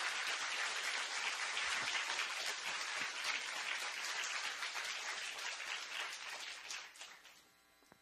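Audience applauding, a dense steady clapping that dies away about seven seconds in.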